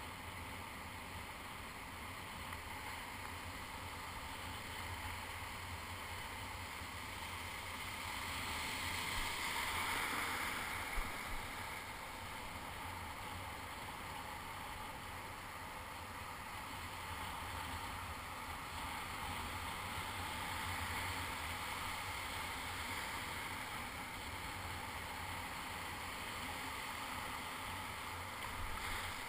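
Broken surf washing and foaming in shallow water, a steady rush that swells from about eight to eleven seconds in. A single sharp knock sounds near eleven seconds.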